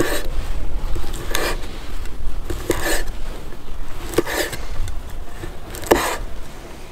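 Cleaver slicing through grilled lamb testicles on a wooden chopping board, the blade knocking on the wood about every one and a half seconds.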